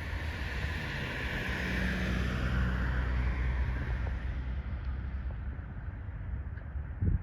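Vehicle noise: a steady low engine rumble, with a rush of passing traffic that swells about two seconds in and fades away, and a short thump near the end.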